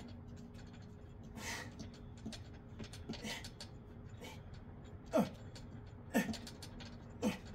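A man breathing hard through a set of dips, then grunting with strain on each rep: three short grunts that drop in pitch, about a second apart, in the second half.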